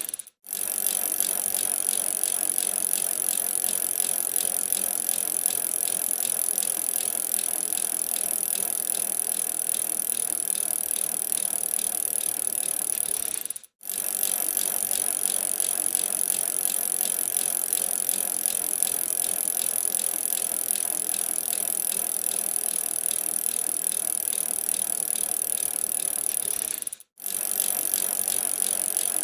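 Bicycle riding: a steady, fast fine ticking and light rattle from the bike, even in level throughout. It drops out for a split second three times: near the start, about halfway, and near the end.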